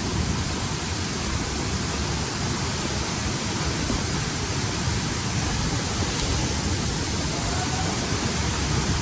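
Waterfall's heavy flow of falling water, a steady loud rushing noise, muffled through a waterproof camera case.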